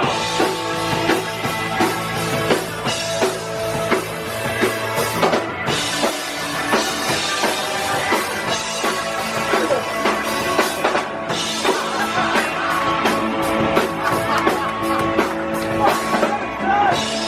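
Live rock band playing an instrumental stretch of a song: drum kit driving a steady beat under guitar, with no singing.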